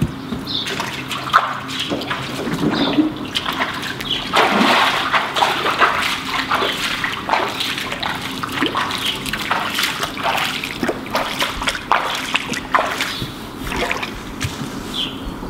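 Bare feet splashing through a shallow layer of water on the floor of a swimming pool, in uneven steps.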